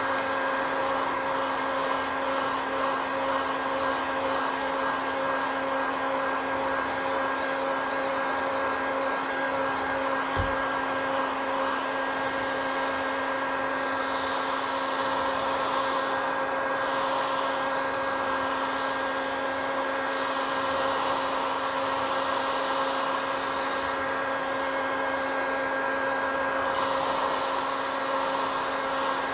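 Handheld electric heat gun blowing hot air without a break: a steady rush of air over a constant motor hum.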